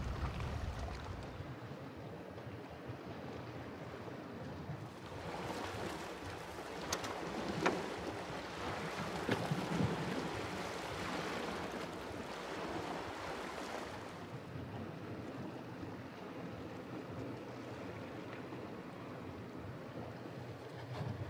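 Sea waves washing over a rocky shore, with wind, a steady wash that swells to a louder surge in the middle, with a few sharp ticks.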